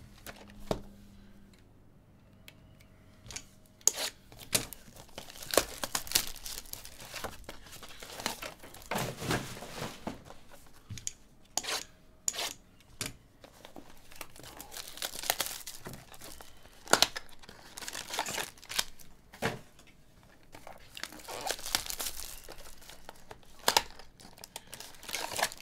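Plastic shrink-wrap being torn and crinkled off sealed boxes of baseball trading cards, with irregular taps and knocks from the cardboard boxes being handled.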